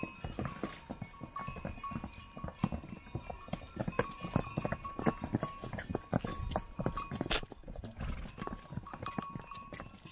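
Pack mules walking on stone steps: many irregular hoof clops and knocks, with the tinkling of mule bells ringing on and off.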